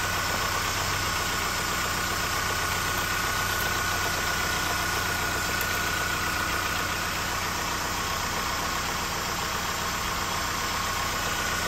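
2004 Hyundai NF Sonata's Theta four-cylinder engine idling steadily with the hood open, a steady high whine running along with it.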